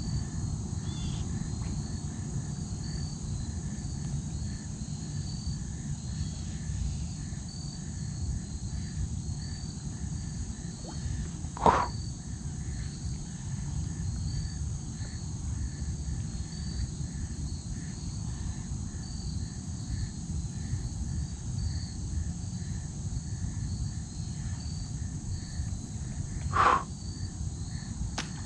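Insects chirping in a steady, regular pulse over a low background hum of open-air noise. Two short sharp sounds stand out, one about 12 seconds in and one near the end.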